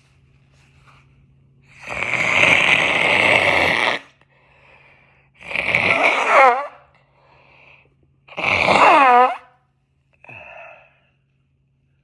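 Wet nose blowing from a congested nose: three hard blows, the first about two seconds long, the second and third ending in harsh honks that slide down in pitch, with faint sniffs between them and a shorter, weaker blow near the end. The congestion is from allergies.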